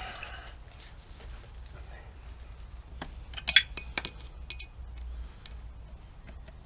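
Light metal clinks and clicks of a wrench working on the outboard's shift-linkage lock nut, scattered, with the loudest cluster a little over three seconds in.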